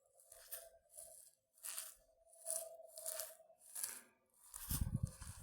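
Faint footsteps crunching on gritty ground at a steady walking pace, each step a short scrape. A low rumble comes in near the end.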